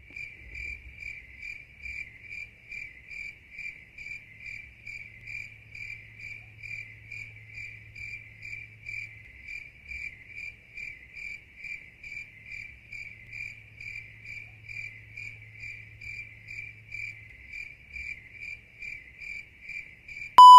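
Cricket chirping sound effect: an even, unbroken run of chirps at about two to three a second, all at one pitch. It is the stock cue for an awkward silence.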